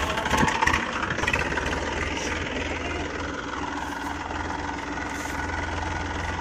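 Massey Ferguson 245 DI tractor's three-cylinder diesel engine running steadily at low speed, hauling a heavily loaded fodder trolley over soft field soil.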